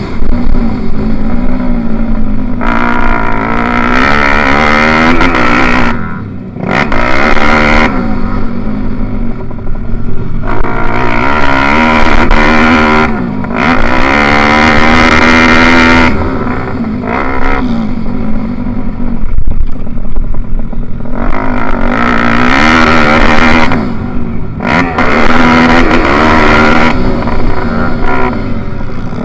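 Single-cylinder pit bike engine heard from the bike itself, revving hard and then dropping away over and over as the throttle is opened and closed around the track, its pitch climbing in long runs and falling back between them.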